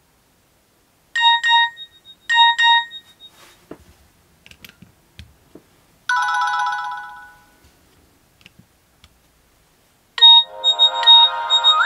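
Nokia N70 mobile phone ringtones and alert tones through the phone's speaker. A short double beep sounds twice near the start, a chiming tone fades out over about a second and a half midway, and a busier melodic ringtone begins near the end, with faint clicks in between.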